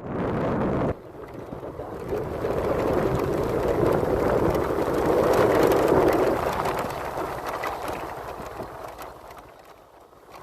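A vehicle passing by: a noisy engine sound that grows louder to a peak about halfway through, then fades away. A brief separate sound fills the first second and is cut off abruptly.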